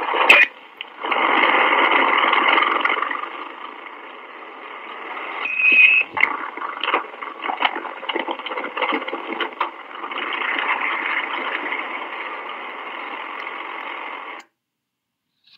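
Old police two-way radio recording from a 1963 Dallas Police Dictabelt: dense static and hiss through a narrow radio band, with scattered clicks and a short whistle tone about six seconds in. It cuts off suddenly about a second before the end.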